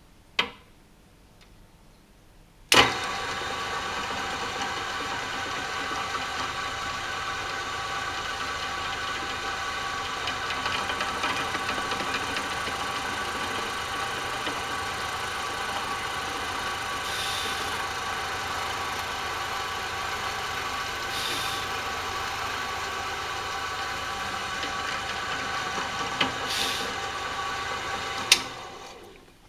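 Electric drill running steadily with its bit boring mounting holes into a longbow's riser. It starts suddenly a few seconds in after a single click, holds an even whine for about 25 seconds, and stops with a click near the end.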